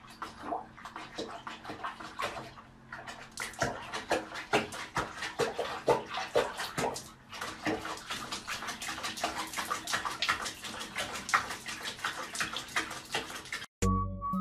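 Water sloshing and splashing in a plastic basin as a cat moves in a foamy bubble bath, with many small irregular clicks and drips. Music comes in near the end.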